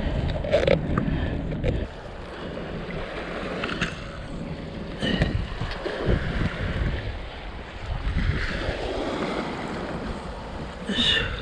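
Sea water sloshing against the shore, with wind buffeting the microphone in a loud low rumble that drops away abruptly about two seconds in. A few light clicks and knocks sound over the water, the sharpest near the end.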